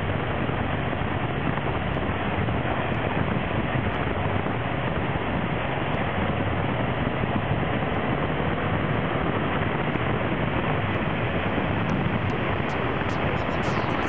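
Touring motorcycle cruising at highway speed, heard from the rider's seat: a steady rush of wind over the microphone with engine and road noise beneath, unchanging throughout.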